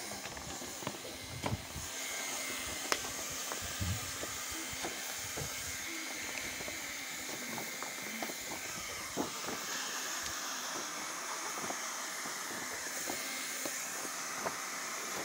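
Handheld hot-air plastic welding gun blowing a steady hiss as it heat-welds a seam in a plastic dam liner, with scattered light crackles from the liner sheet being pressed and handled.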